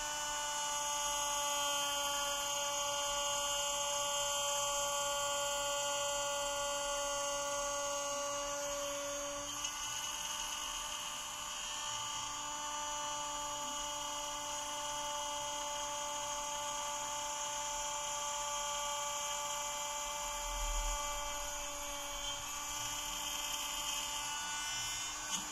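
Bosch router on a homebuilt CNC machine running a cheap quarter-inch bit through pine, cutting a slot 1/8 inch deep at a 500 mm/min feed: a steady high-pitched motor whine whose pitch shifts slightly about ten seconds in.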